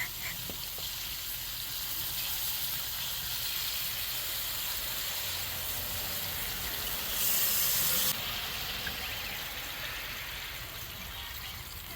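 Flour-dredged deer meat frying in hot grease on a camping griddle: a steady sizzle, with a sudden louder hiss for about a second past the middle.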